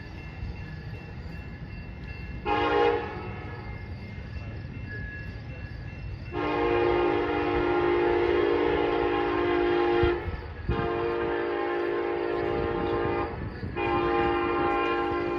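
Amtrak locomotive horn: one short blast, then three long blasts in a row, the last running on past the end, over the steady low rumble of the train.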